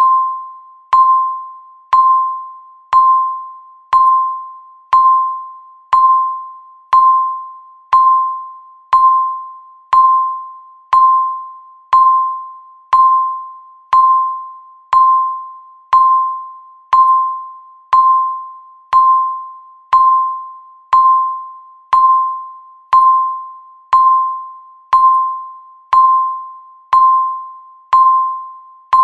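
Countdown timer's ticking sound effect: a single-pitched, bell-like electronic ding once a second, each struck sharply and fading away before the next, marking off the seconds.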